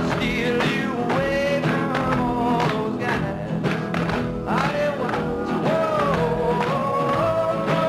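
Background music: a song with a singing voice over a band with a steady beat.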